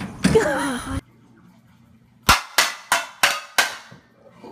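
A short cry over noise that cuts off abruptly. About a second later come five sharp, loud bangs in quick succession, roughly three a second, each with a short ringing tail.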